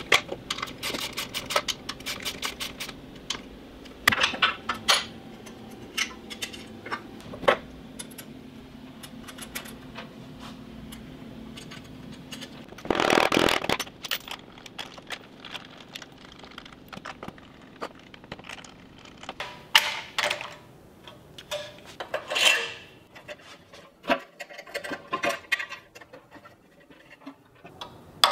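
Hand tools working on a small go-kart engine: a ratchet clicking rapidly for the first few seconds, then scattered metal clinks and scrapes of wrenches and parts being handled, with a longer scraping rustle of about a second around the middle.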